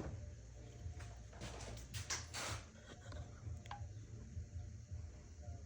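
Faint rustling handling noise with a few light clicks, over a steady low hum.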